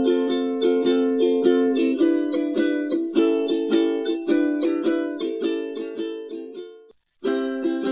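Ukulele strumming chords in a quick, even rhythm, changing chord every second or so. The strumming fades and cuts out for a moment near the end, then starts again.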